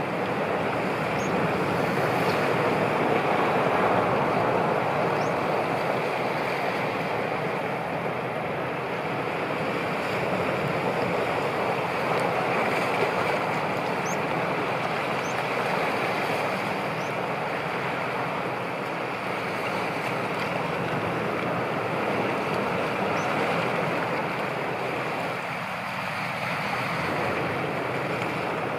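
Wind and a choppy sea: a steady rushing wash of waves, swelling and easing a little, with wind.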